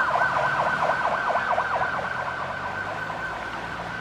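Emergency vehicle siren in rapid yelp mode, its pitch sweeping quickly up and down about five times a second, fading out about three seconds in, over a low steady hum.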